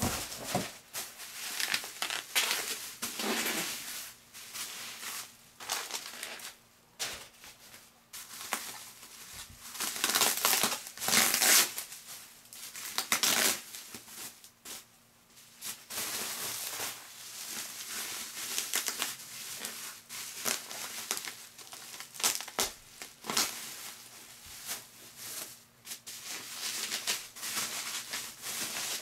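Plastic bubble wrap being crinkled and pulled off a boombox by hand, in irregular bursts of rustling, loudest about ten to thirteen seconds in.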